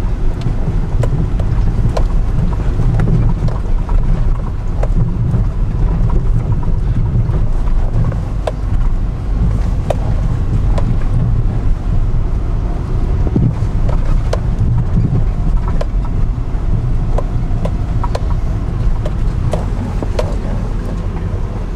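Car driving on a rough gravel road, heard from inside the cabin: a steady, loud low rumble of tyres and engine, dotted with frequent small clicks and knocks from stones and rattles.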